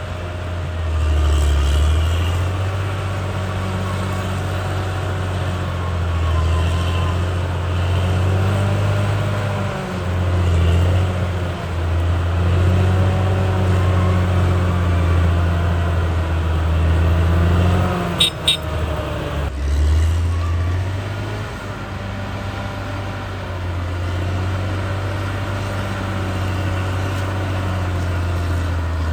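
Caterpillar D6R XL bulldozer's diesel engine running as a low drone, its pitch rising and falling with the changing load. A few sharp metallic clicks come about eighteen seconds in.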